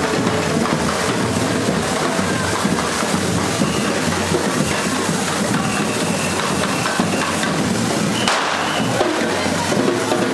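Drumming mixed with the continuous hiss and crackle of fireworks spraying sparks, as at a correfoc fire run. It stays loud and dense throughout.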